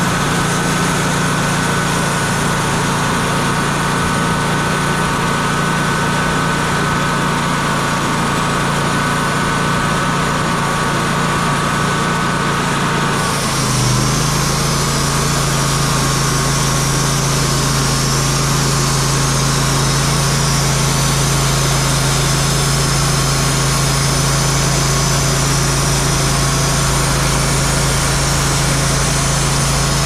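Wood-Mizer LT40 portable band sawmill running steadily while sawing a cherry log. About halfway through, its engine note drops a little and a higher hiss grows stronger.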